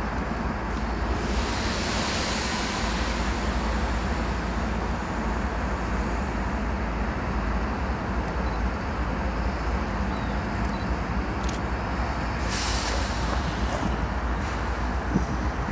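CSX GE ES44AH diesel-electric locomotive running at low power as it creeps slowly forward, with a steady deep engine rumble. Two brief hisses come about two seconds in and near the end.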